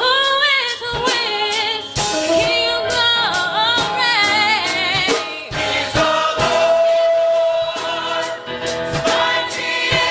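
Gospel choir singing in full voice over a steady percussive beat, with held and gliding notes.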